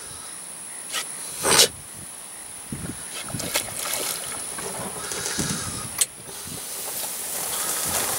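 Water splashing as a dog wades and swims in a pond, snapping bites at the water, with a louder burst of noise about a second and a half in and a sharp click near six seconds.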